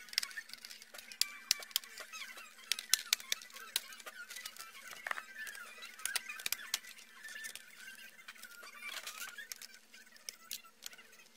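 Plastic laptop case being opened and handled: irregular sharp clicks and snaps, with a few short creaks.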